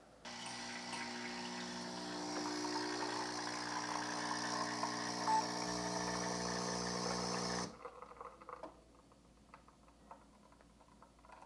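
Ninja CFN601 espresso system's pump running as it forces hot water through a Nespresso pod at 19 bars of pressure: a steady hum with a hiss over it, a little louder about two seconds in. It cuts off suddenly after about seven and a half seconds when the shot finishes, leaving only a few faint ticks.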